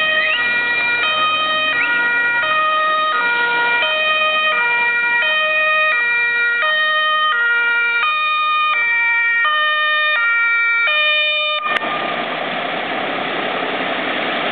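Dutch fire engine's two-tone siren, switching between a high and a low note about every two-thirds of a second as the truck approaches. About twelve seconds in the siren cuts off, and the DAF fire engine's engine rumbles close by.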